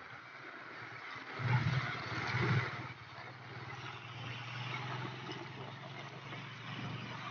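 Motorcycle engine running as the bike rides along a wet road in heavy rain, over a steady hiss of rain and tyres on water. The engine hum swells about a second and a half in, then settles to a steady drone.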